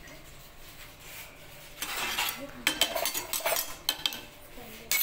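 Metal ladle stirring milk coffee in a metal saucepan, scraping and clinking against the pan, mixing in freshly added sugar. The stirring is soft at first and picks up with several sharp clinks about two seconds in.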